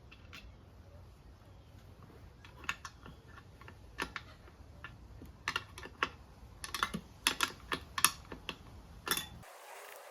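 Irregular sharp clicks and taps of steel flathead screwdrivers against a motorcycle wheel rim and tire as the old tire is pried off. The clicks come in quick clusters and are thickest a few seconds before the end.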